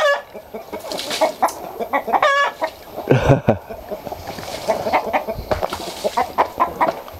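A flock of chickens clucking repeatedly at feeding time, with many short, overlapping calls and a louder one about three seconds in.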